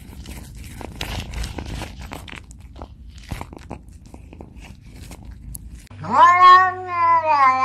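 A cat chewing and biting at something fibrous, heard as a run of short crunching clicks. About six seconds in, a long-haired cat lets out one long, loud meow that rises and then falls in pitch.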